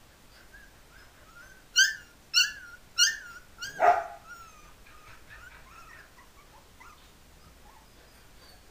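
Three-week-old Pumi puppies yelping: four sharp, high-pitched yips in quick succession about two seconds in, then soft squeaky whimpers.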